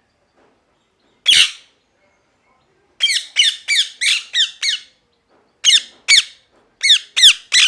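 Ringneck parrot giving short, harsh squawking calls, each dropping in pitch. One call comes a little over a second in, then a quick run of about eight, then a pair and three more near the end.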